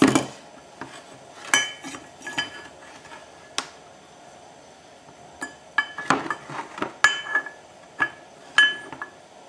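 Metal parts and tools being handled by hand and set down on a hard surface, giving irregular clinks and knocks that ring briefly. There are a few in the first seconds, a pause, then a quicker cluster in the second half.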